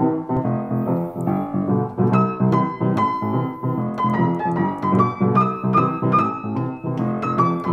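Grand piano played by two people at once: a steady pattern of repeated low chords, with a higher melody joining about two seconds in and climbing step by step.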